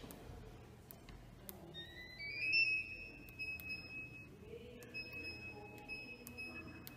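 A faint, high electronic tone climbs in a few quick steps about two seconds in, then holds, breaking off and returning several times, over light clicks.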